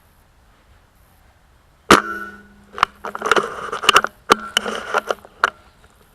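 VSR-10 spring-powered bolt-action airsoft rifle being fired and worked: a sharp clack with a brief metallic ring about two seconds in, lighter clicks and rustling, then a second clack and ring a little over four seconds in. A few more clicks follow before it goes quiet.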